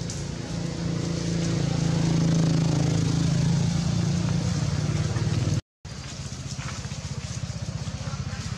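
An engine running steadily with an even low hum, louder in the middle. The sound cuts out for a split second just past halfway and comes back quieter.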